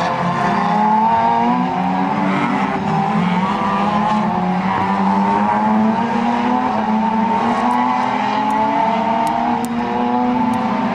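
A pack of Renault Mégane Trophy race cars with 3.5-litre V6 engines running hard as they pass. Several engine notes overlap and rise and fall in pitch as the cars accelerate out of the corner.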